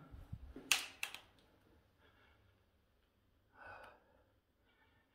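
A man breathing faintly: two quick, sharp breaths about a second in and a short exhale near the end.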